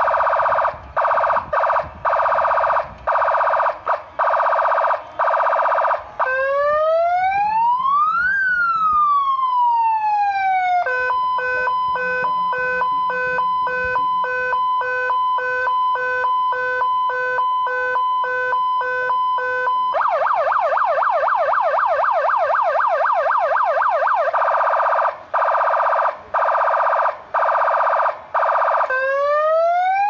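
Electronic four-tune siren cycling through its tones: a rapid yelp for about six seconds, one slow rising-and-falling wail, a steady held tone for about nine seconds, then the rapid yelp again, with another wail beginning near the end.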